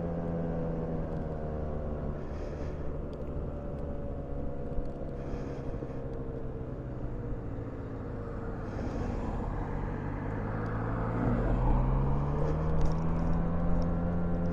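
Car engine running while driving slowly, its pitch dipping a little and then rising about ten seconds in as the car picks up speed.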